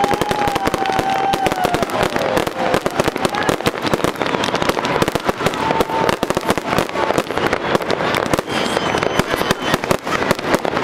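Fireworks display: many aerial shells bursting in quick succession, a dense, continuous volley of bangs with no pause.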